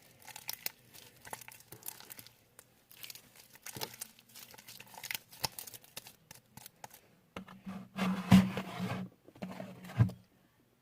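Sticky glue slime being worked by hand, giving a run of irregular wet clicks and crackles, louder for a second or so near the end.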